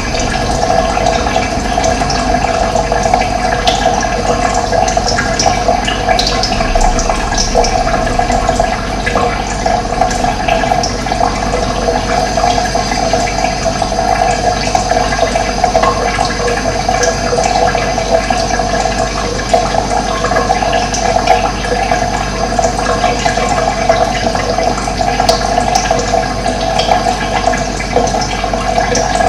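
Running water, a steady rushing flow with no break.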